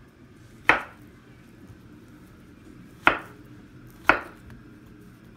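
Kitchen knife slicing through peeled plantain and knocking on a wooden cutting board: three sharp single chops, one under a second in, then two more about a second apart past the middle.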